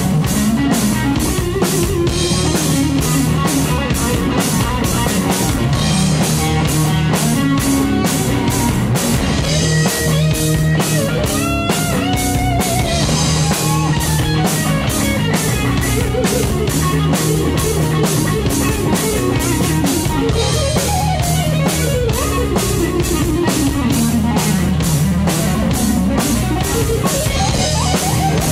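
Live rock band playing an instrumental passage: electric guitar with sliding, bending notes over a steady drum-kit beat and bass guitar.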